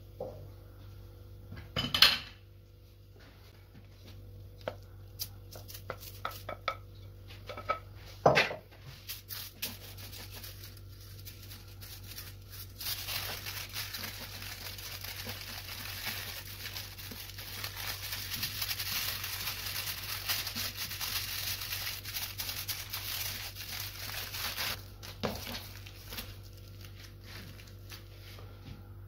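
Aluminium foil crinkling and rustling as it is handled and rolled tightly into a log. The rustling is loud and continuous through the middle of the stretch. It is preceded by a few sharp knocks, the loudest about two seconds in and again about eight seconds in, over a steady low hum.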